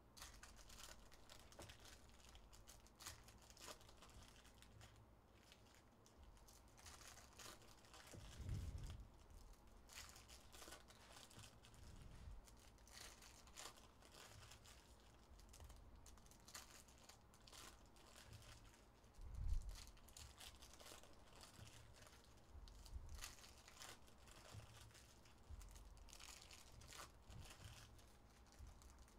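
Faint crinkling and tearing of 2024 Topps Chrome Tennis trading-card pack wrappers as packs are opened and the cards handled. There is a dull thump about eight seconds in and a louder one near twenty seconds.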